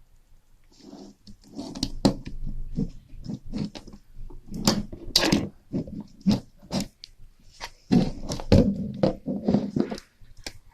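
A crude single-shot rifle being handled: irregular clicks, knocks and scrapes of its parts, heaviest about two seconds in, around the middle, and again near the end.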